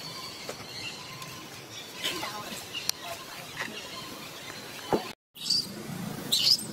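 Outdoor ambience with faint high chirping calls and a few light clicks. The sound drops out completely for a moment about five seconds in, then returns with sharper high-pitched sounds.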